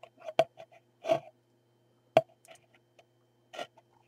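Handling noise from the opened Kiev-6S camera body: several sharp clicks and light knocks, about a second apart, as the metal body is turned in the hands. A faint steady electrical hum sits underneath.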